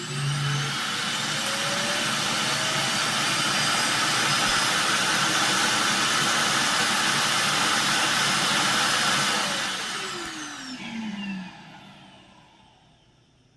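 iRobot Clean Base automatic dirt disposal station emptying a Roomba i6+'s bin into its bag. Its suction motor spins up with a rising whine, runs loudly and steadily for about ten seconds, then winds down with a falling whine and stops.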